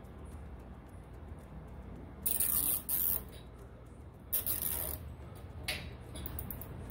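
Nylon zip tie being pulled through its ratcheting head around a bundle of wires, in several short zipping bursts: the longest starts about two seconds in, another comes just past four seconds, and smaller ones follow near the end.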